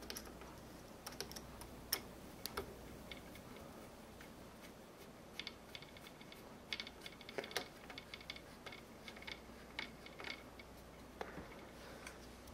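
Faint, irregular small clicks and ticks in short clusters: a 2.5 mm hex key being fitted and turned in the screws of a Fox CTD fork top cap, metal tool against screw head and aluminium cap.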